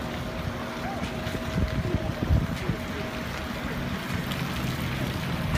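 Outdoor street noise: a low, steady rumble of vehicle engines, with wind buffeting the microphone in a few low thumps about two seconds in.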